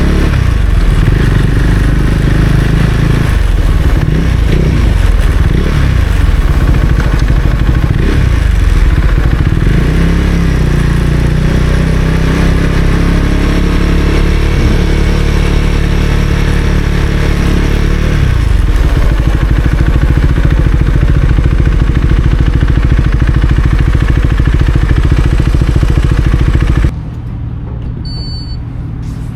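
Husqvarna Svartpilen 401's single-cylinder engine running under way, its revs rising and falling repeatedly through the gears, then holding steadier. Near the end the sound drops abruptly to a much quieter low rumble.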